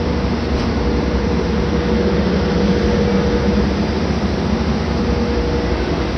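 JR 415 series electric train standing at the platform, its onboard equipment humming steadily with a constant whine.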